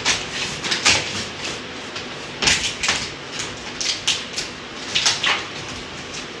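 Packing tape being pulled and torn off a cardboard shipping box: a string of short, irregular noisy rips with the cardboard scraping and flexing.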